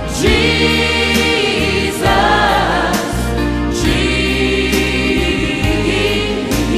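Christian worship song: voices sing "Jesus, Jesus, Jesus" in long held notes over a sustained bass and backing music.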